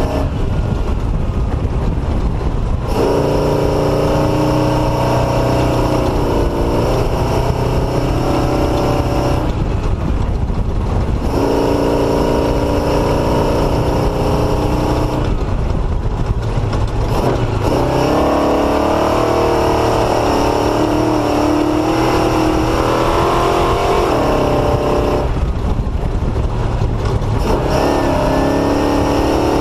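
Off-road motorcycle engine running under changing throttle on a dirt two-track, its pitch rising and falling. It eases off three times to a noisy rumble and comes back on. Loud throughout.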